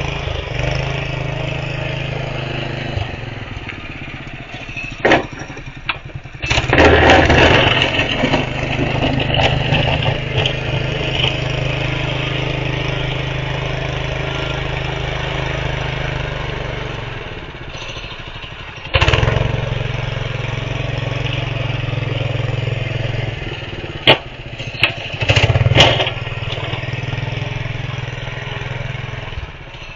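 Honda GX160 single-cylinder engine of a home-built snow plow running steadily while it pushes snow. It swells louder twice, about six seconds in and again near the middle, and a few sharp knocks come near the end.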